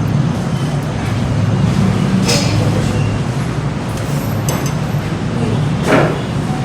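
Steady low background rumble, with a few short clinks about two seconds in, around four and a half seconds, and about six seconds in.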